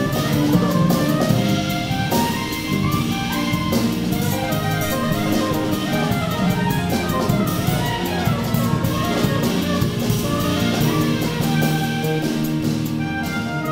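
Live jazz quartet playing: soprano saxophone over grand piano, bass and a drum kit with busy ride and cymbal work. The cymbal strokes drop away near the end.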